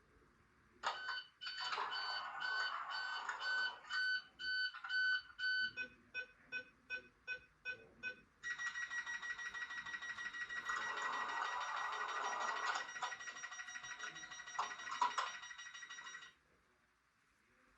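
Electronic warning beeps from the sound decoder of a Märklin 39714 ICE 4 model train, played through its small speaker. The beeping starts about a second in and quickens to about two beeps a second near the six-second mark. From about eight seconds in it turns into one steady tone, which stops a little after sixteen seconds.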